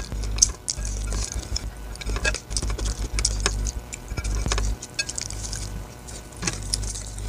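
Close-up eating sounds of fried sausage being bitten and chewed with sambal: irregular wet mouth clicks and smacks.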